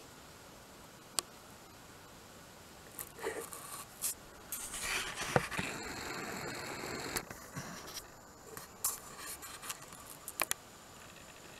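Close rustling and scraping with a few sharp clicks. The loudest part is a burst of rustling from about three to seven seconds in, and one click stands out near the end.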